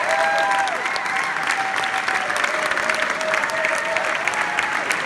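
Large audience applauding, many hands clapping densely, with voices cheering and whooping over the clapping.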